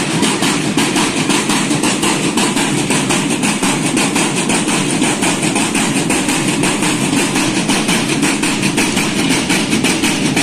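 A marching drum line beating a fast, steady rhythm on its drums.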